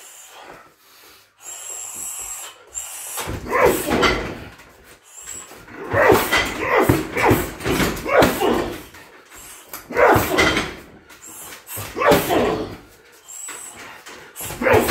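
Kicks and punches landing on a 60 kg heavy bag in bursts of several strikes, with the fighter grunting on the strikes.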